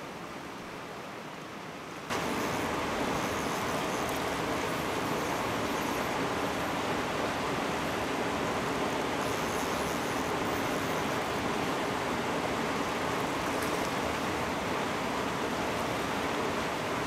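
Steady rushing of a fast river running over rocks. It comes in abruptly about two seconds in and then holds level.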